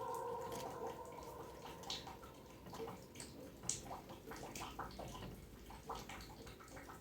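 Faint water dripping and splashing, heard as scattered, irregular small clicks.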